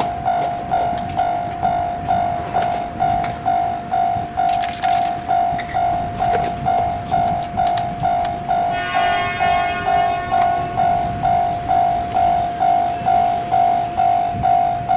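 Japanese level-crossing warning bell ringing at the Shinkansen crossing: a single electronic tone struck a little over twice a second without a break. About nine seconds in, a high sound of several tones sounds over it for about two seconds.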